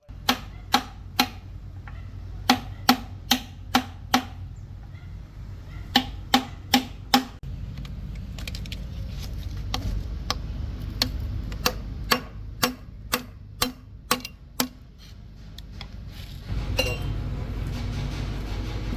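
Repeated hammer blows in runs of several strikes, about two to three a second, each with a short ring, over a steady low hum. Near the end a louder rushing noise sets in.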